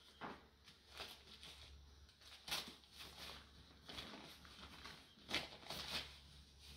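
Faint, irregular rustling and crinkling of shredded newspaper as a puppy wriggles and rolls on its back over a concrete floor, with a few sharper scuffs among them.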